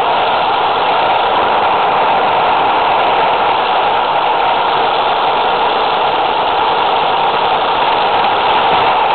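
Steady whirring rattle of an N-scale model train running along its track, heard up close from a miniature camera riding on it: motor and wheels on the rails, with no distinct pitch and no change in speed.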